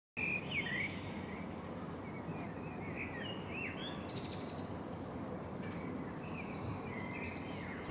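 Small birds chirping and twittering in park trees, many short calls with quick rising and falling notes and a brief rapid trill about halfway through, over a steady low background noise.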